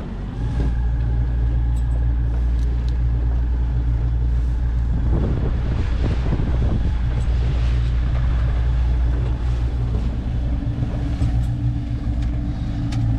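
A boat motor running with a steady low hum that gets louder about half a second in and then holds even.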